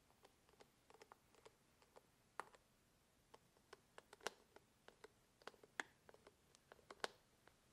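Hand screwdriver turning small cross-head screws into a bicycle saddle's plastic corner guard: faint, irregular clicks and ticks, with four or five sharper clicks.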